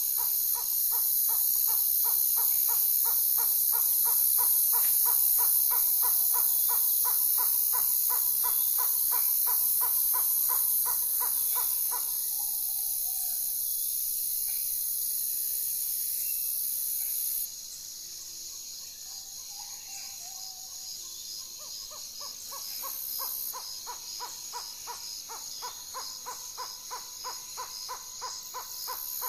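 Nature recording: a short call note repeated about four times a second over a steady high hiss. The calling fades out around the middle and comes back near the end.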